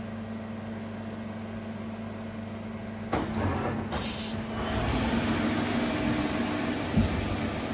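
Daewoo Puma 230M CNC lathe: a steady hum, then about three seconds in something starts up suddenly, with a short hiss, and the machine runs louder with a steady whine. There is a single knock near the end.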